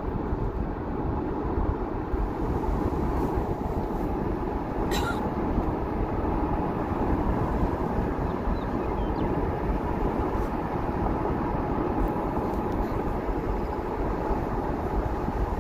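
Steady road noise of a car driving, tyre and engine noise without breaks, with one brief click about five seconds in.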